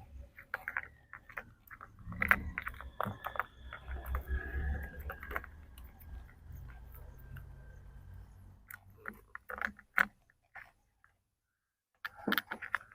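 Hands fitting a battery into an RC car's battery compartment: irregular plastic clicks and crinkling with low handling rumble, a short pause, then another quick cluster of clicks near the end.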